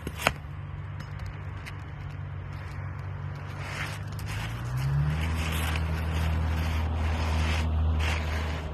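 A steady low engine hum that rises in pitch about halfway through and holds at the higher pitch, with a sharp click at the start. Intermittent scraping and rustling run over it in the second half, as asphalt shingles are handled and slid into place.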